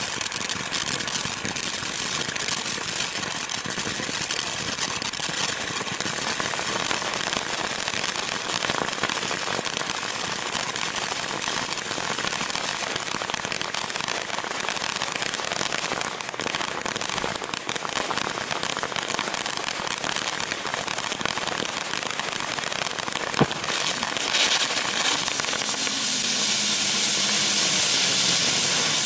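Topgun Mr. Cameraman ground fountain firework spraying sparks with a steady hiss and crackle. One sharp pop comes about twenty-three seconds in, and the hiss grows louder over the last few seconds as several ground effects burn at once.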